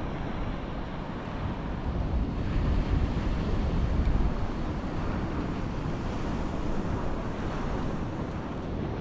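Waves breaking on the shore, with wind rumbling on the microphone, gustiest about two to four seconds in.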